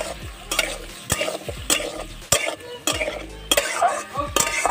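A metal spatula scrapes and knocks against a steel kadai as diced potatoes and whole tomatoes are stirred in oil, about two strokes a second, over a light frying sizzle.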